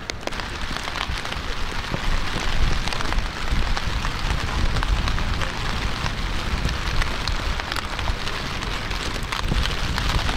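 Steady rain falling, an even hiss dotted with many small drop ticks, over a continuous low rumble.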